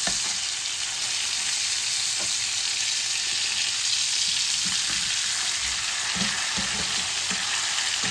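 Beef steaks sizzling steadily in foaming butter and oil in a ridged grill pan. A few soft knocks come from a fork lifting and turning the meat.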